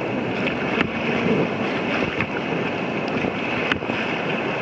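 Rushing whitewater rapids splashing around an inflatable raft, with wind buffeting the microphone. Two sharp knocks, about a second in and near the end.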